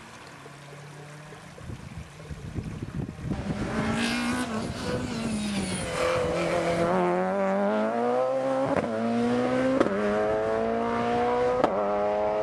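Rally car engine, faint at first, then loud, with the revs rising and falling through braking and gear changes. It then accelerates hard, the pitch climbing and dropping back at each of three quick upshifts near the end.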